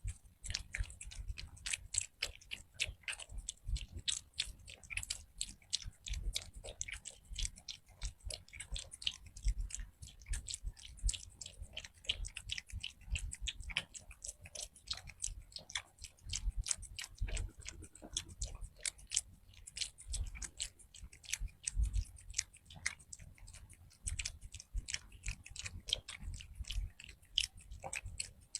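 A cat chewing its food, a steady run of quick crisp clicks, several a second.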